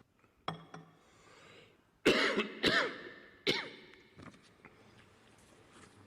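A man clearing his throat with two short sounds about half a second in, then three hard coughs in quick succession from about two to three and a half seconds in, picked up by the microphone of a speech being broadcast live.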